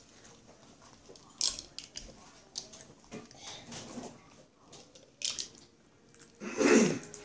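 Children chewing and drinking down cold water, with scattered short mouth and swallowing noises and a louder breathy sound near the end.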